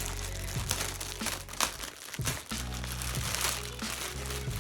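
Packaging crinkling and rustling as the sweatshirt is handled, over background music with sustained low notes.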